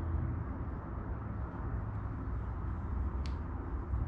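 Motor oil pouring from a quart bottle through a plastic funnel into a motorcycle engine's oil filler, refilling it after an oil change, over a low rumble. A single sharp click comes about three seconds in.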